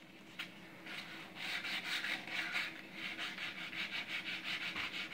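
Sandpaper rubbed by hand over an Ibanez electric guitar's body, stripping the finish and stickers, in quick back-and-forth strokes of about four a second. It starts soft and grows stronger about a second and a half in.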